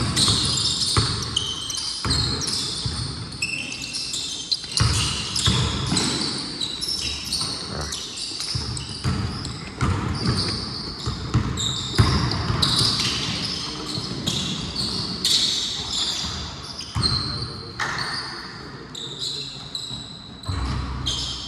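Basketball game play in a gym: the ball bouncing on the court, with frequent short high squeaks of sneakers on the floor, all echoing in a large hall.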